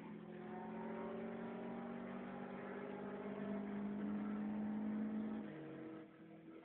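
Car engine heard from inside the cabin, pulling steadily, its pitch slowly climbing. About five and a half seconds in, the note drops and quietens as the driver comes off the throttle.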